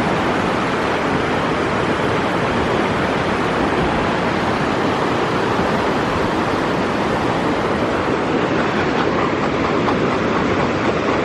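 Fast-flowing river rapids rushing below a footbridge: a loud, steady wash of water noise with no breaks.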